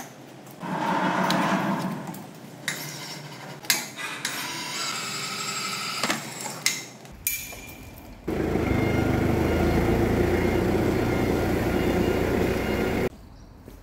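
Metal workshop sounds: a brief scraping burst, then sharp metal knocks and clanks that ring on. After an abrupt cut, a steady loud machine noise runs for about five seconds and stops suddenly.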